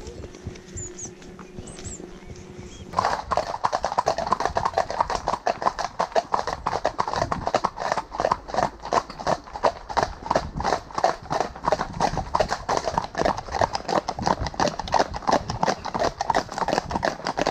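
Horses' hooves clip-clopping on a tarmac lane as a group of horses walks, a fast, steady run of sharp hoof strikes from several animals. The strikes start suddenly about three seconds in, after a quieter stretch.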